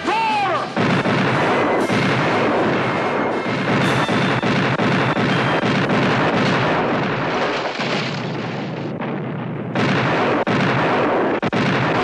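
A warship's broadside of muzzle-loading cannon firing, shot after shot running together into a continuous din. There is a short lull about nine seconds in, then more cannon shots.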